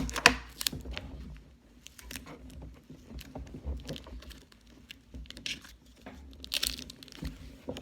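Paper and thin card being handled: rustling and crinkling with small clicks and taps, and a couple of short scratchy bursts.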